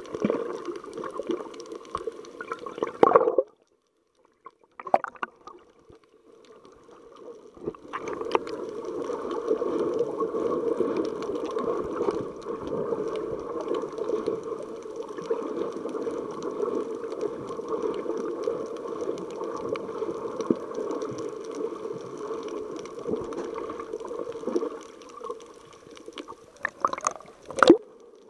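Muffled water noise heard through an action camera's microphone under the sea, with gurgling and bubbling. There is a sharp splash about three seconds in, then a few seconds of near silence, and more sharp splashes near the end.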